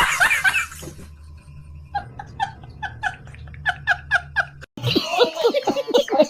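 Loud group laughter and shrieks dying away in the first second, then one person laughing in a steady run of short 'ha' sounds over a low hum. About five seconds in it cuts abruptly to loud music with voices.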